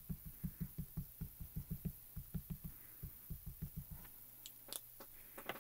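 Rapid soft tapping as a small mini ink cube is dabbed over and over onto a clear stamp on an acrylic block to ink it, about five or six taps a second. The tapping stops about four seconds in, and a few light clicks follow near the end.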